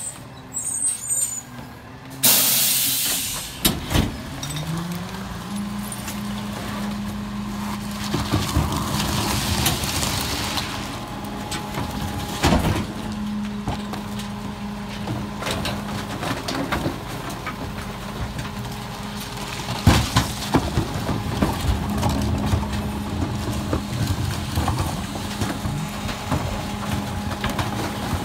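Freightliner M2106 garbage truck: a sharp hiss of the air brakes about two seconds in. Then its diesel engine speeds up and holds a steady raised idle, easing back for a few seconds midway. Plastic wheeled bins knock and bang against the rear hopper as they are tipped in.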